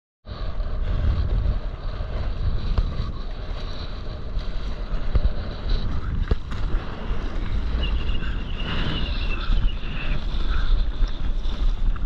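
Wind buffeting the microphone of a camera on a stand-up paddleboard, over water splashing and rushing along the board as it is paddled through choppy sea.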